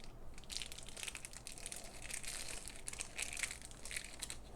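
Packaging being handled and unwrapped: irregular crinkling and rustling of plastic and paper wrapping.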